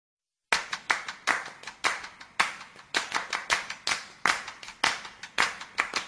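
Rhythmic claps in a steady pattern, a strong clap about every half second with lighter ones between, starting about half a second in: the percussion intro of a music track.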